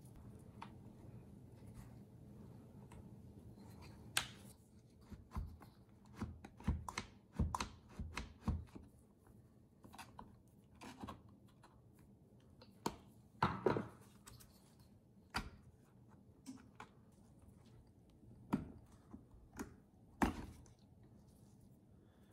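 Scattered clicks, taps and scrapes of a screwdriver and hands working the plastic housing of a Homelite Super 2 chainsaw as its top handle and ignition switch are taken off, with a faint steady hum behind.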